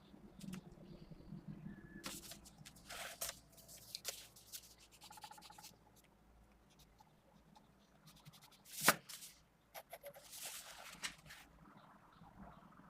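Mechanical pencil with 0.5 mm 2B lead scratching and rubbing on paper in short, irregular sketching strokes, with one sharp click about nine seconds in.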